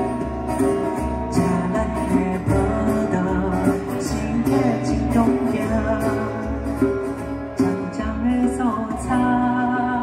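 Live acoustic music: a strummed steel-string acoustic guitar with a hand-played djembe keeping a steady beat and an occasional cymbal, with a man singing into a microphone over the PA.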